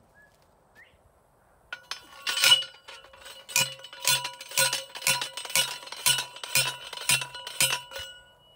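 Steel T-post being driven into the ground with a manual post driver: about a dozen ringing metallic clangs, starting a couple of seconds in and settling into a steady beat of about two a second.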